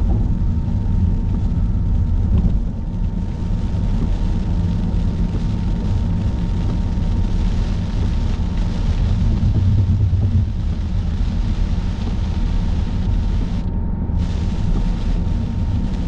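Car driving at highway speed, heard as steady road noise: a deep tyre-and-engine rumble with a lighter hiss over it. The hiss briefly drops away near the end.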